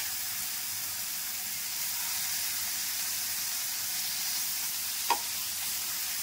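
Marinated chicken pieces sizzling in hot melted butter in a frying pan, a steady hiss, with a single light knock about five seconds in.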